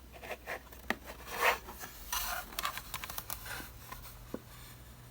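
Handling noise from a replica Mack R series model truck being turned over in the hands: scattered light clicks, scrapes and rubs, with a louder scrape about one and a half seconds in.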